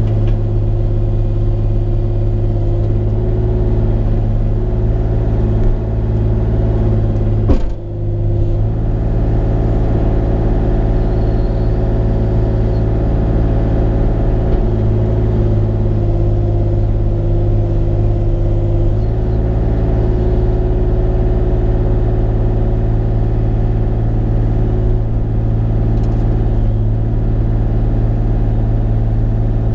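Bobcat E35 mini excavator's diesel engine running steadily under work. A single sharp knock comes about seven and a half seconds in.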